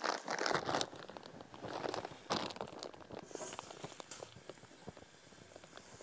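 Clear plastic zip-top bag crinkling as hands rummage in it for soaked chestnuts: bursts of crackly rustling in the first few seconds, then fainter scattered crinkles and ticks.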